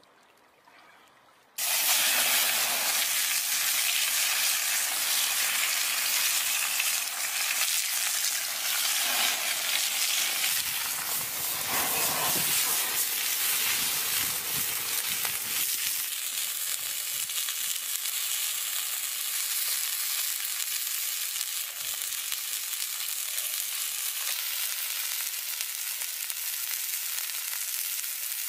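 Whole octopus sizzling on a stone slab heated over a wood fire: a dense, steady hiss that starts suddenly about a second and a half in.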